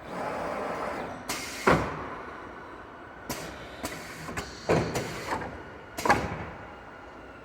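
PVC window processing machinery at work: a short rush of air at the start, then a series of sharp mechanical clunks and clacks at irregular intervals, typical of pneumatic clamps and actuators moving.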